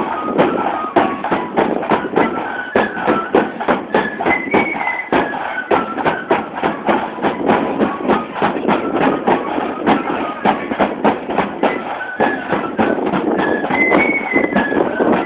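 Marching flute band playing a tune: a high flute melody over a steady march beat on bass and side drums.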